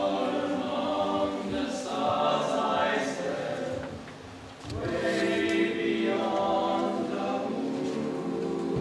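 A small group of young male voices singing a cappella in close harmony: two sustained phrases, with a short break for breath about four and a half seconds in.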